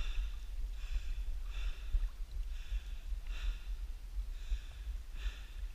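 A man breathing hard through his nose, a puff about every second, with a steady low rumble underneath.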